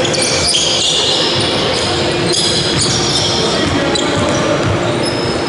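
Basketball being played: the ball bouncing on the hall floor and sneakers squeaking as players cut and stop, with scattered voices of players.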